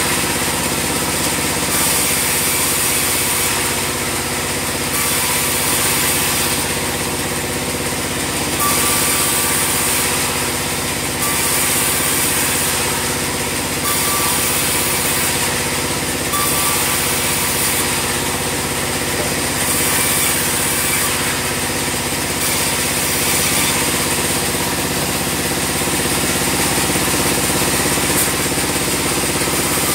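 Band sawmill running steadily, a constant machine drone with a high hiss that swells and fades every second or two.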